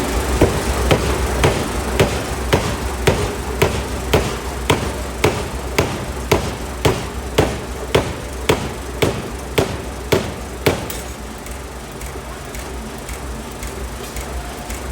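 750 kg pneumatic forging hammer striking a hot steel block in a steady run of about twenty blows, just under two a second, which stop near the end. The hammer's machinery keeps up a steady low hum underneath.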